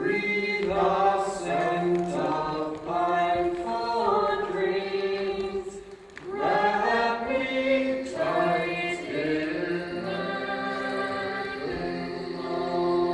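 Choir singing in phrases, with a short break about halfway through and longer held chords near the end.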